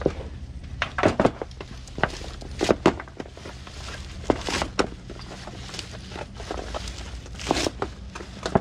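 Irregular knocks and metallic clinks from handling metal parts and tools while refitting the pivot of a homemade machete grass chopper to add two washers, over a low steady rumble.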